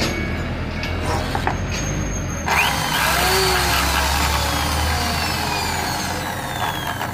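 Corded electric drill, clamped into a homemade mini lathe rig, running: it gets louder about two and a half seconds in, and its motor whine then slowly falls in pitch.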